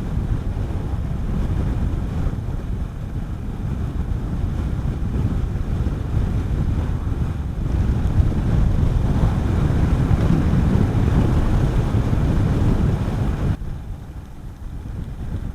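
Riding wind buffeting the microphone on a moving Honda CB400SS motorcycle, a steady low rumble with the bike's single-cylinder engine underneath. The rumble grows louder, then eases suddenly about 13 seconds in.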